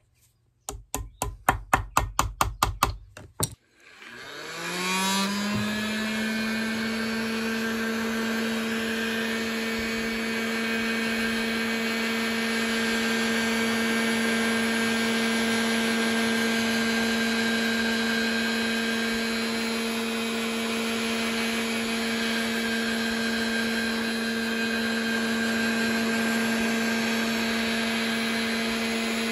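A rapid run of about twenty sharp clicks in the first three seconds, then a handheld heat gun switches on: its fan motor whines up in pitch and settles into a steady hum with a rush of blowing hot air, softening a Celastic sheet for molding.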